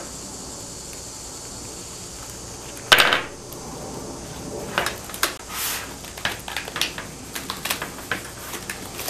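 Clicks and knocks of a pleated window shade's rails and cord lock being handled: one louder knock about three seconds in, then a run of small irregular clicks and taps.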